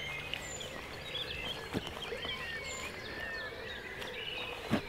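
Dawn chorus of songbirds: many overlapping chirps, warbles and short high whistles. Two sharp knocks cut through it, a faint one about two seconds in and a louder one near the end.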